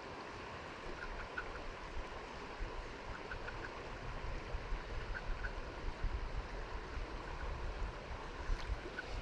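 Creek water running steadily, with a low rumble underneath and a few faint short chirps now and then.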